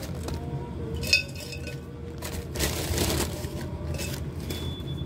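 Bark chips tipped from a plastic zip bag into a pot: the bag rustles and the chips rattle in, with one sharp clink about a second in.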